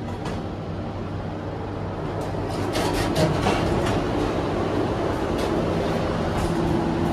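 Heights elevator's car and landing doors opening with a quick run of clicks and clunks about two to three seconds in. After that, the louder, steady rumble and hum of the subway station comes in through the open doorway.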